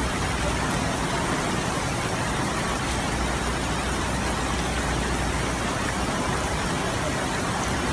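Steady rushing noise of fast-flowing floodwater and heavy rain, unbroken and even in level.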